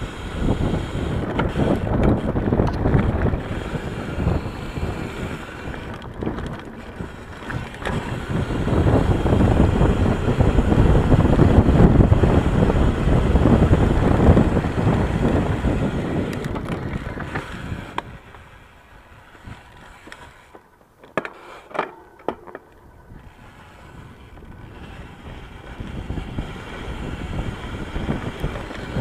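Ibis Mojo HD mountain bike ridden fast on a dirt trail: rushing wind on the microphone with tyres rolling over dirt and the bike rattling. It goes quieter for several seconds past the middle, with a few sharp clicks in the lull, then builds again.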